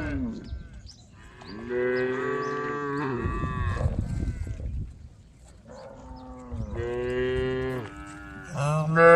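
Cows mooing: several long calls one after another, each lasting one to two seconds, with a louder one starting near the end.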